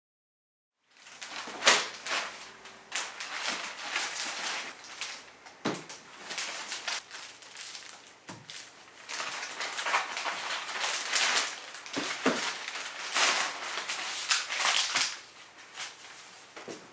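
Packaging crinkling and rustling as it is handled, with irregular crackles and a few sharper knocks, starting about a second in.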